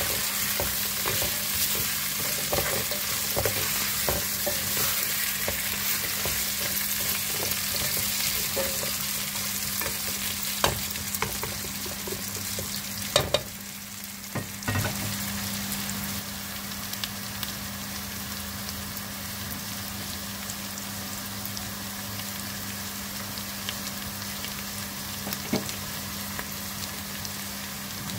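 Diced potatoes and onions sizzling in hot oil in a metal pot, with a spatula scraping and knocking against the pot during the first half. About 13 seconds in the sound briefly dips, then the frying goes on steadily with only occasional clicks, over a steady low hum.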